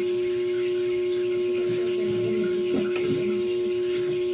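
A steady electrical-sounding hum held at one pitch, with faint clinks of tableware beneath it.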